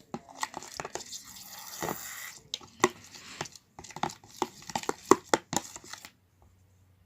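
A spoon stirring and scraping thickening slime in a container: irregular sticky clicks and scrapes, stopping about six seconds in.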